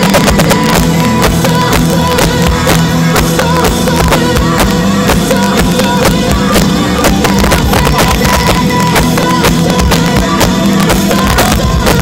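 Live rock band playing loud through a festival PA, with pounding drums and guitar, picked up by a phone in the crowd and heavily distorted.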